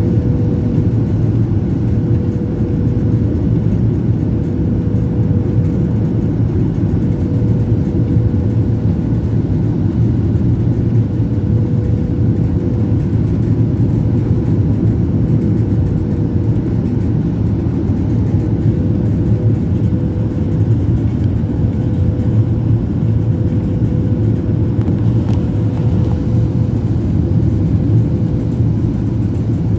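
Aircraft engines droning steadily: a low rumble with a constant hum and no change in pitch or level.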